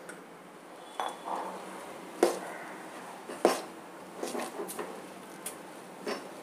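A steel spoon stirring stiff rice-flour dough in a stainless steel pot, knocking and scraping against the metal in irregular clinks. The two loudest clanks come at about two and three and a half seconds in.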